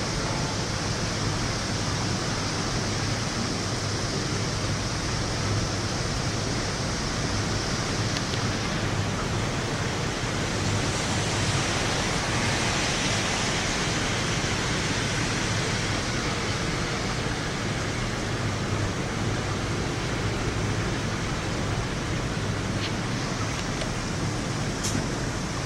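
Steady, even hiss of heavy rain during a thunderstorm, with no thunder clap standing out.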